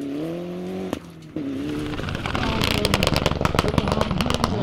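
Mitsubishi Lancer Evolution rally cars at full throttle: a turbocharged four-cylinder engine revs up and is cut short about a second in. Another Evo's engine follows, with a rapid crackling over the engine note from about halfway through.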